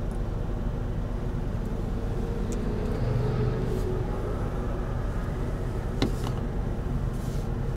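A vehicle running at idle: a steady low rumble with a few faint clicks, the clearest about six seconds in.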